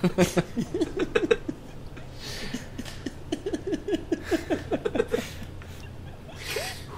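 People laughing in two runs of quick, short, pitch-gliding laughs, with breathy gasps between.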